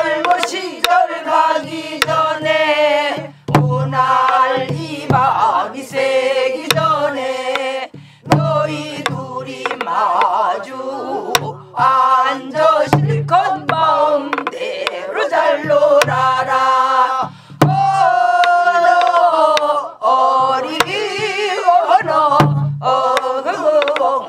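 Group singing of a Korean Namdo folk song: a woman's lead voice with heavy vibrato and the class singing along, men and women together. They are accompanied by buk barrel drums, with low drum thumps and sharp stick clicks on the drums.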